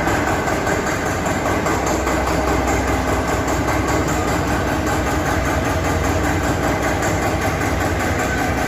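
Eicher 241 tractor's single-cylinder diesel engine running steadily, with no change in speed.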